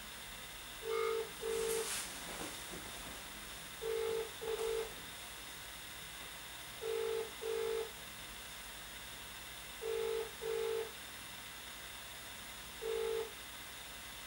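Telephone ringback tone through a mobile phone's speaker, in the British and Irish double-ring pattern: a low two-pulse ring repeating about every three seconds while the called phone rings unanswered. There are four full double rings, and the last ring near the end stops after its first pulse.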